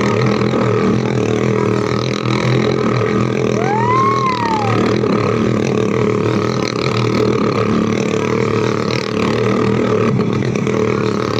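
Motorcycle engine running steadily at speed as the bike circles the wall of a dirt pit. About four seconds in, a brief rising-and-falling tone sounds over it.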